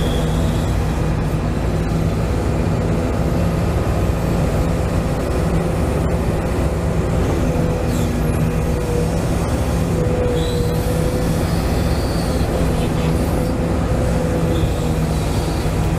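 1:14 scale RC hydraulic excavator's pump and motor running with a steady hum while it digs, with a couple of brief higher whines, one at the start and one about ten seconds in.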